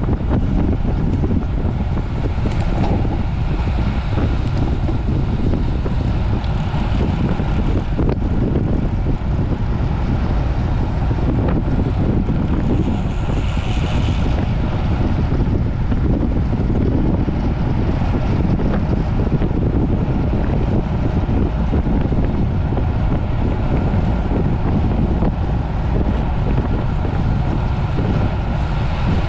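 Steady, loud wind rushing over the microphone of a camera carried on a road racing bicycle moving at speed, with a brief higher hiss about halfway through.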